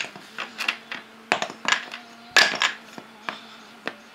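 Wooden toy building blocks clacking and knocking as a toddler picks them up and sets them down one after another: a string of irregular sharp knocks, loudest about two and a half seconds in.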